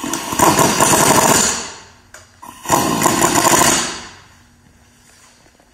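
Pneumatic impact wrench hammering in two bursts of about a second and a half each, zipping the brake caliper's mounting bolts into the spindle without going full blast.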